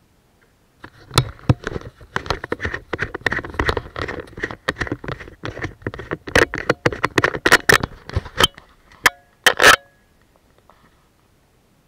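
A close, dense jumble of clicks, knocks and rattles, as of hard objects being handled, starting about a second in and stopping shortly before the end, with a few sharper knocks and a brief ring near the end.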